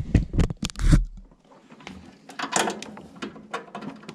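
Knocks, clicks and scraping of hand tools and metal parts being handled on a gas furnace: a cluster of sharp knocks with a low thud in the first second, then scattered clicks and a stretch of scraping and rattling about halfway through.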